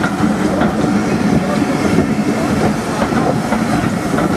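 Railway passenger carriages rolling past close by: a steady rumble of steel wheels on the rails, with some clicking over rail joints.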